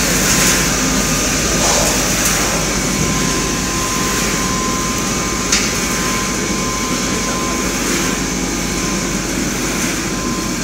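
Popcorn seasoning machine running: steady mechanical noise of its motor-driven stainless-steel tumbler drum turning, with a faint steady whine through the middle and one sharp click about five and a half seconds in.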